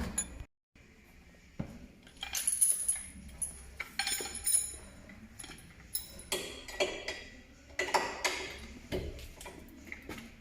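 Irregular metallic clinks and clanks of steel tools and a bottom-arm pull-down tool being handled and fitted against the car's suspension, some strikes ringing briefly.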